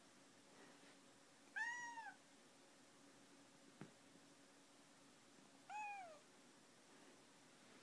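Domestic cat meowing twice, about four seconds apart, each meow a short call that rises and then falls in pitch. A brief click comes between them.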